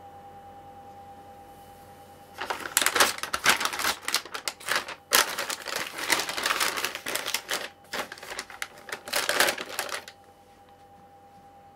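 Plastic foil snack bag crinkling as it is picked up, turned over and set back down. The dense crackling begins about two seconds in, pauses briefly near the middle, and stops a couple of seconds before the end.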